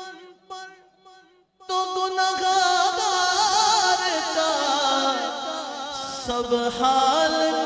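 A man singing a naat into a microphone over a sound system. After a brief pause he takes up a loud, long line whose pitch wavers and slides in ornaments.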